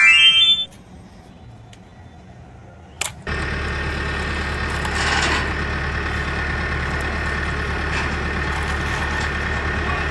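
A short rising tone at the start, then a click about three seconds in, after which a steady engine idling sound, like a truck's, runs on evenly.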